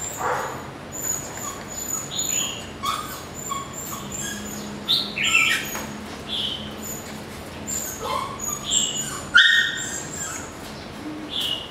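Border Collie puppy giving short, high-pitched whimpers and yelps, repeated irregularly, with small birds chirping behind.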